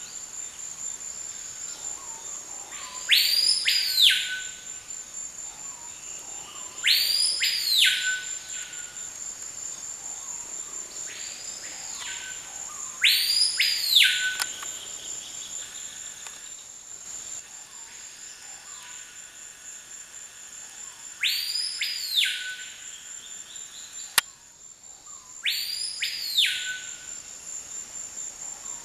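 Rainforest insects keep up a steady high trill while a bird repeats a loud whistled call that sweeps up and back down, several times a few seconds apart. There is one sharp click about three-quarters of the way through.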